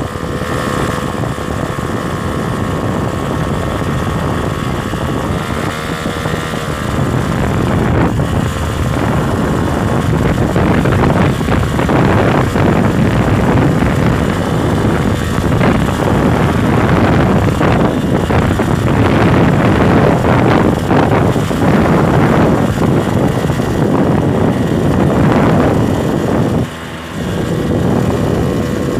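Motorcycle engine running while riding over a dirt track, with wind on the microphone. The engine note is steady for the first several seconds, then a louder, rougher noise takes over, dropping briefly near the end.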